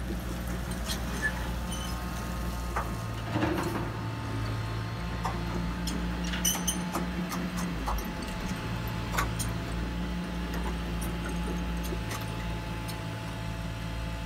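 Hydraulic RC excavator running, its pump motor humming steadily with the pitch shifting as the boom and bucket work, with scattered sharp clicks and ticks.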